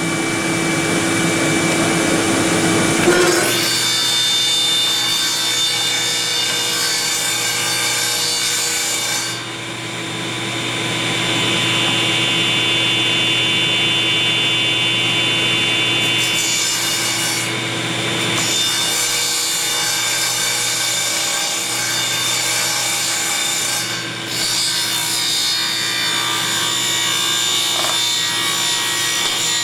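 Shop vac running, then a table saw starts about three seconds in and runs steadily, its blade cutting through oak to rip a tapered shim. The level dips briefly twice as the cut load changes.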